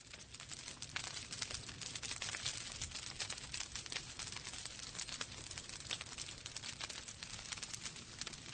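Wood fire in a fireplace crackling and popping, with many small sharp snaps over a low steady rumble of the flames.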